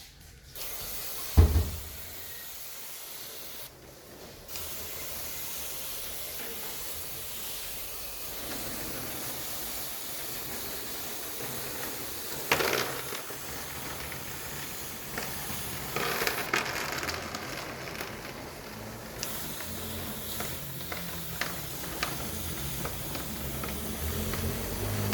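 Steady hiss of a sprayer washing the coil of a split air conditioner, broken briefly about four seconds in, with a sharp knock near the start and a few smaller knocks later.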